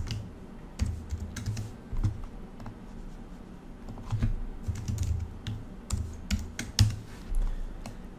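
Typing on a computer keyboard: irregular key clicks, some in quick runs of several strokes.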